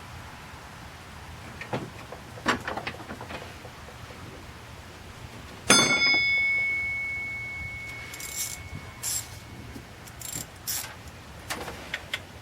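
Metal hand tools and sockets clinking during work on the engine. About six seconds in comes one sharp metallic clank with a clear ringing tone that fades over about three seconds, followed by more light clinks.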